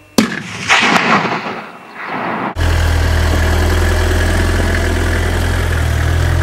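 A single rifle shot about a quarter of a second in, echoing for about two seconds. Then, after a sudden cut, a vehicle engine running steadily with a deep, even hum.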